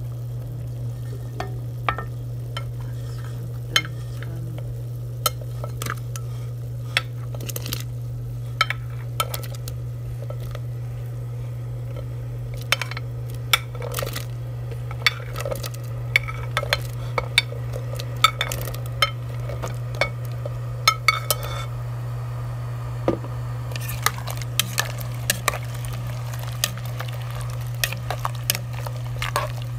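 Plate and spoon knocking and clinking against a cooking pot as chopped zucchini is tipped into boiling water and stirred, in many short sharp clicks that come thicker from about halfway in. A steady low hum runs underneath.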